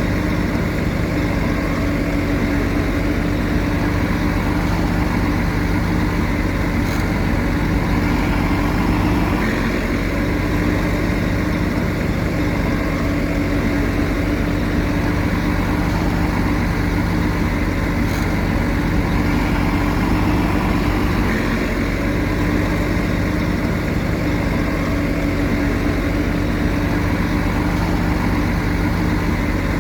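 Heavy diesel engine of earthmoving machinery running steadily at an even pitch.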